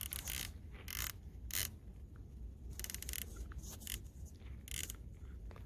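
Handling noise: a series of short scrapes and rustles, about eight of them spread irregularly, with no shot.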